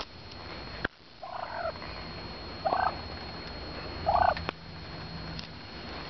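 Wild turkeys calling: three short calls about a second and a half apart.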